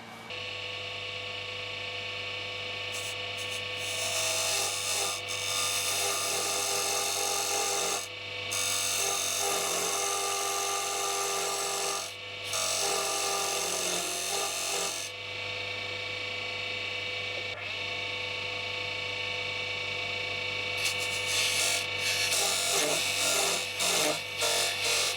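Wood lathe running with its steady motor hum while a wooden broom-handle blank is shaped on it, the rasping of the cut breaking off briefly three times as contact is lifted.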